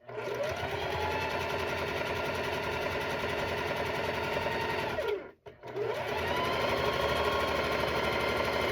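Sewing machine running at speed as it stitches a quilt seam, its motor whine rising as it starts. It winds down and stops about five seconds in, then starts up again.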